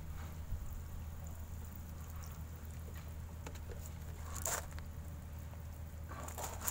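A fine spray of water pattering onto potted seedlings, their leaves and soil, with a couple of brief louder rustles, one about four and a half seconds in and one near the end.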